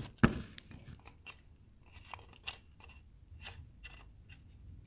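Handling of a Uniweld Crossbow ratcheting tube bender: a sharp knock just after the start as the cross member goes onto the bolt, then scattered light clicks and scrapes as its wing nut is turned by hand.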